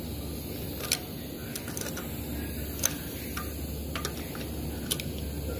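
A few sharp, scattered clicks of hand tools on engine parts, about three of them standing out, over a steady background hum.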